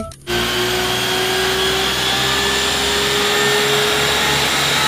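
Water tanker truck's pump and water cannon spraying a jet of water: a loud, steady rushing hiss over a low hum, with a tone that rises slowly in pitch. It starts suddenly just after the beginning.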